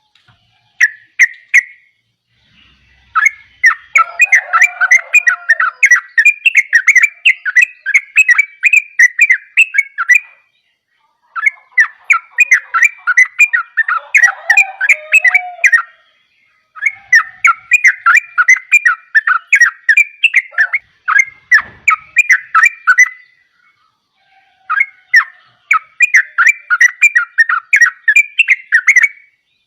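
Yellow-vented bulbul (trucukan) singing in full voice: a short call, then four long runs of quick, chirping notes, each several seconds long, with brief pauses between.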